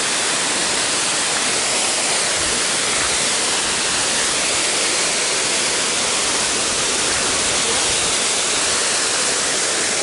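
Waterfall: falling water rushing in a steady, unbroken hiss.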